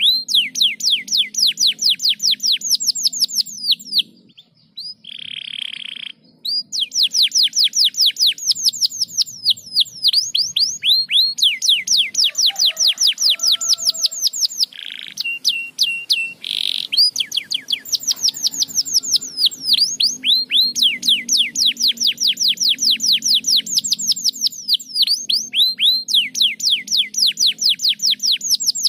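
Domestic canary singing: long fast trills of repeated down-sweeping notes, about five a second, broken by short pauses and a few held whistled notes.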